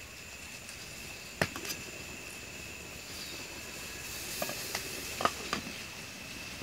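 A glass pot lid clinks against a steel cooking pot as it is lifted and set back down: one sharp clink early on, then a quick cluster of clinks a little past the middle. Underneath are a faint steady hiss and a thin high tone.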